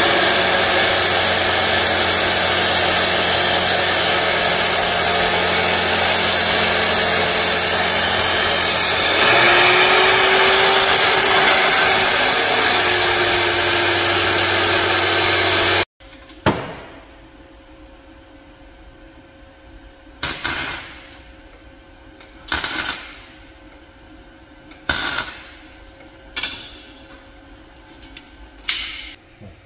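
Bosch abrasive cut-off saw cutting through steel exhaust pipe: a loud, steady grinding that changes pitch about nine seconds in, then stops abruptly about sixteen seconds in. A faint steady hum follows, with six short, sharp sounds every couple of seconds, each dying away within a second.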